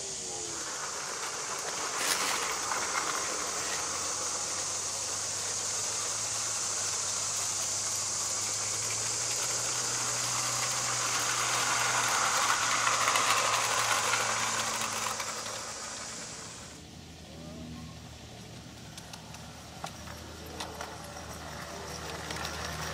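G-scale model cog locomotive and coach running on rack-and-pinion track: a steady whirring hiss of motor, gears and wheels that grows loudest as the train passes close and cuts off suddenly about two-thirds through, followed by a quieter stretch with a low hum and a few clicks.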